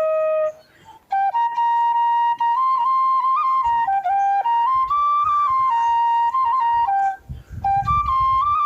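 Background music: a solo flute plays a melody of held, stepping notes, pausing briefly twice. Low rumbles sit underneath in the middle and near the end.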